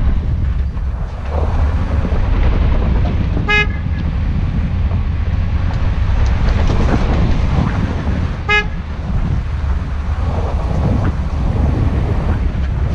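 Steady low rumble of wind on the microphone and a moving vehicle, with two brief horn toots about five seconds apart.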